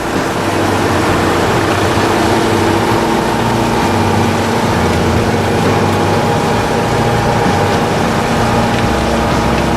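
Heavy four-tracked snow-and-swamp carrier's engine running steadily, a continuous low rumble with a steady whine over it.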